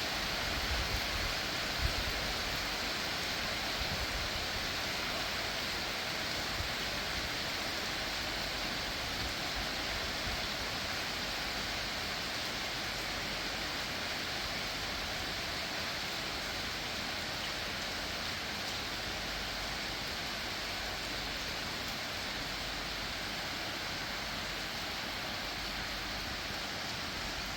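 Steady rain falling, an even hiss throughout, with a few low bumps in the first few seconds.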